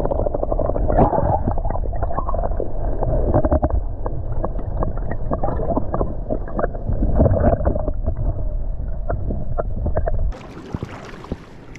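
Muffled water sloshing and rumbling heard through a camera held underwater, with nothing in the high end and many short knocks from handling against the housing. About ten seconds in it drops much quieter and sounds brighter.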